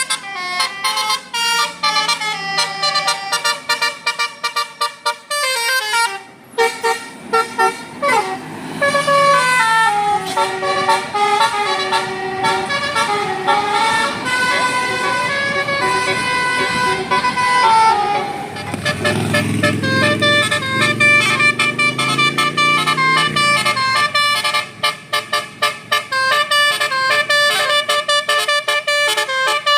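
Bus 'telolet' Basuri musical horn playing quick melodic runs of stepped notes. A lower rumble rising in pitch joins about twenty seconds in.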